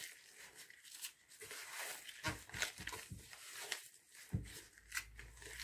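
Hands in disposable gloves gathering and pressing soft yeast dough in a plastic bowl: faint, irregular squishing and tearing sounds as the dough is pulled and folded.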